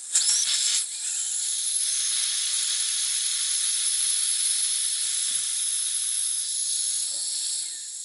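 Gas hissing out of a tall Zaima brass butane lighter's filler valve held open by a pin tool: trapped air, with butane starting to come through, being bled from the large tank during refilling. A sharper burst in the first second, then a steady high hiss that eases off near the end.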